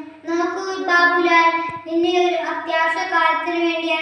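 A young boy singing unaccompanied in his own voice, holding each note steady.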